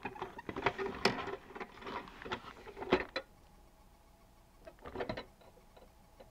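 Hand handling a plastic toy recycling truck inside its cardboard window box: irregular clicks, knocks and rustles of plastic and card for about three seconds, then a shorter burst of them about five seconds in.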